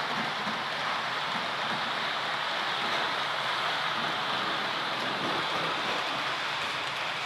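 Steady rushing hiss of model trains rolling on the layout's track, with no change in level.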